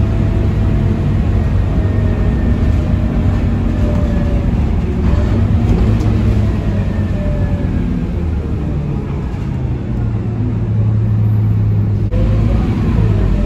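Scania K230UB Euro 5 city bus heard from inside the passenger cabin, running along the road with a steady low rumble and a faint whine that sinks slightly in pitch. It grows quieter for a few seconds past the middle and louder again near the end.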